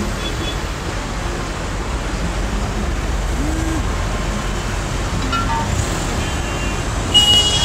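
Traffic jam: the steady hum of many idling car and bus engines close around, with a brief high-pitched tone near the end.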